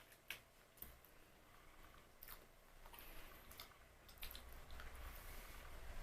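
Faint, close-miked chewing of glazed puff-pastry biscuits (sfogliatine glassate): scattered crisp crunches and wet mouth sounds, with a soft rustling noise building near the end.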